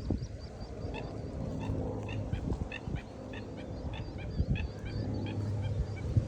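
Geese honking: a rapid run of short calls, about two or three a second, that stops shortly before the end.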